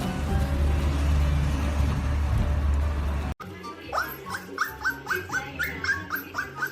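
Background music with heavy low-end, cut off abruptly about three seconds in. It gives way to a dog whimpering in a quick series of short, high cries, about three or four a second.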